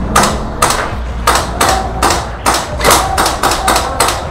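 Airsoft rifles firing a quick, irregular string of single shots, sharp cracks about three a second.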